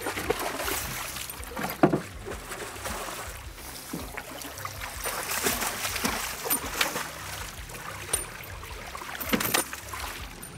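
Hooked silver salmon thrashing at the water's surface, throwing up repeated splashes; the loudest splashes come about two seconds in and again near the end.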